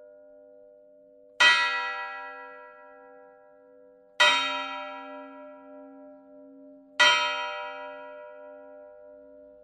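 A single church bell tolling: three strikes about three seconds apart, each ringing on and fading, with its low hum note sounding on between strikes.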